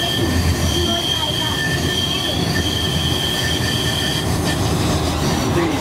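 Tram wheels squealing steadily and high-pitched as the tram takes a curve, over the low rumble of the running gear; the squeal stops about four seconds in as the track straightens.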